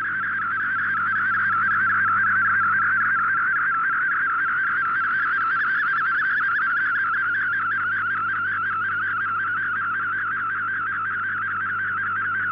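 MFSK32 digital picture transmission received on a shortwave radio: a steady, rapidly warbling mid-pitched tone that runs without a break as picture data is sent, with a faint low hum beneath.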